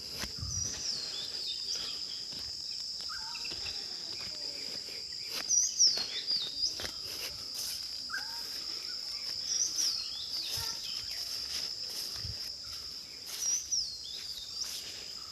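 Steady, high-pitched drone of insects, with a bird repeating a short falling song phrase about every four seconds and a few lower bird calls between.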